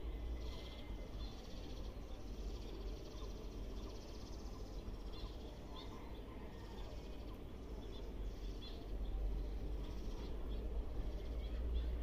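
Outdoor ambience: a steady low rumble with faint, scattered bird chirps throughout.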